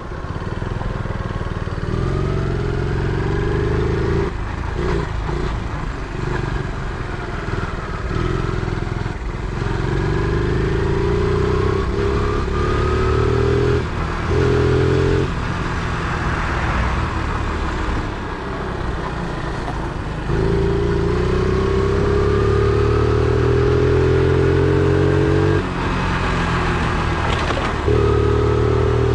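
50cc four-stroke single-cylinder engine of a Chinese Honda Monkey replica mini bike under way. Its revs climb steadily, then break off and drop back, again and again as it accelerates and shifts.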